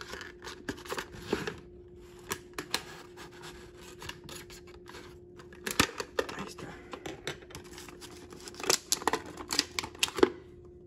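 Plastic blister packaging of a die-cast model truck being handled and pried open: a run of sharp clicks, crackles and scrapes, with the loudest snaps about six seconds in and a cluster near the end.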